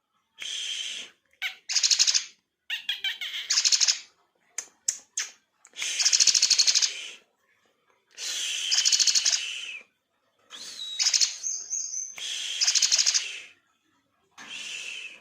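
Javan myna singing a series of harsh, buzzy chattering phrases, each about a second long and repeated every couple of seconds, with a brief thin whistle near the end. Its song is filled with learned Eurasian tree sparrow calls.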